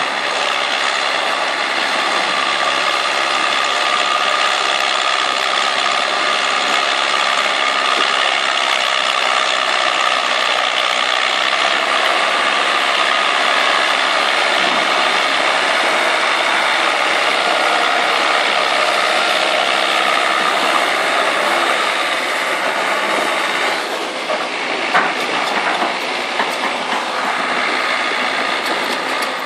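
Farmtrac 6055 tractor's diesel engine running steadily under heavy load, with a loud mechanical rattling and clatter. About three-quarters of the way through the sound dips briefly and a few sharp knocks are heard.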